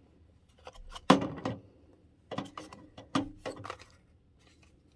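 Hard plastic parts of a Dyson V8 carpet brush head knocking and clicking together as they are handled: one loud knock about a second in, then a quick run of clicks and knocks.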